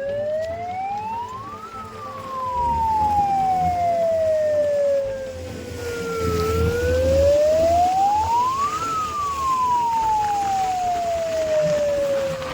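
Emergency siren wailing: its pitch climbs quickly, then sinks slowly, twice over, with a low rumble underneath.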